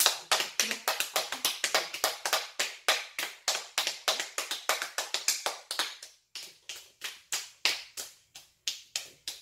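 Rapid hand clapping by two people, about five sharp claps a second, thinning out and slowing after about six seconds.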